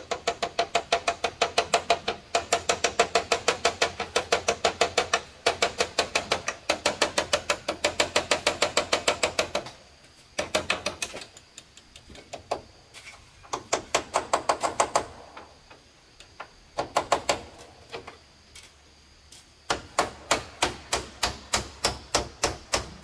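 Rapid repeated striking, about five blows a second, in runs of a few seconds broken by short pauses.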